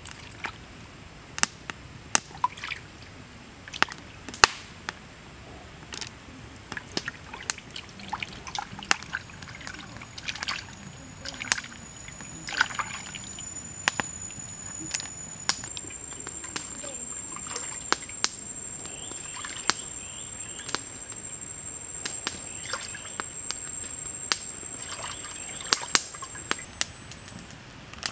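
Wood campfire crackling, with irregular sharp snaps and pops. A thin, steady high whine runs through the middle.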